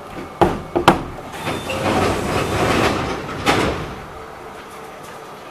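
Passenger train doors working at a station stop: two sharp clunks, then a couple of seconds of hissing noise ending in another clunk.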